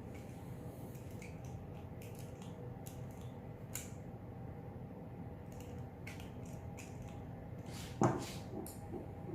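Faint small metallic clicks and ticks as screws and washers are fitted into a KeyBar key organizer during assembly, with one louder knock about eight seconds in, over a steady low hum.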